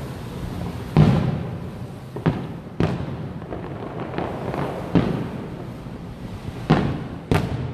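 Aerial fireworks shells bursting: about six sharp booms at uneven intervals, each trailing off in an echoing rumble.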